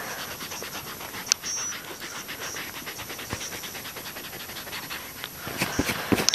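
An eraser scrubbing out pencil lines on lined paper with rapid back-and-forth strokes, about six a second. A few louder knocks come near the end.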